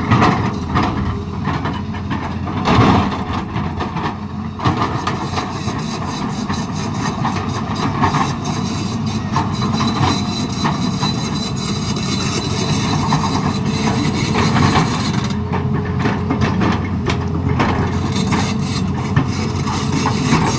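Tata Hitachi crawler excavator's diesel engine running steadily under hydraulic load while the bucket works the rock face, with scattered scraping and knocking of rock and steel.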